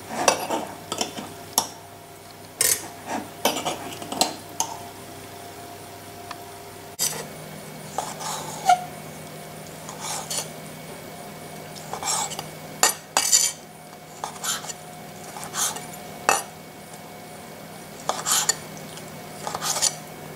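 A kitchen knife clinking and scraping in a glass jar as sun-dried tomatoes are lifted out, then, from about seven seconds in, the knife chopping them on a stone cutting board in irregular sharp taps.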